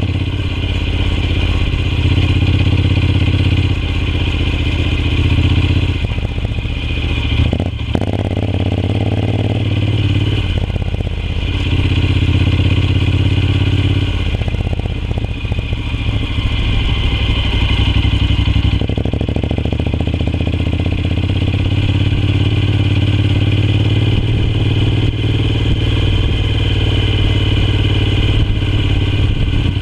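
Honda NC750X's parallel-twin engine running as the motorcycle rides over sandy dirt, its note stepping up and down with the throttle every few seconds. A single sharp knock comes about eight seconds in.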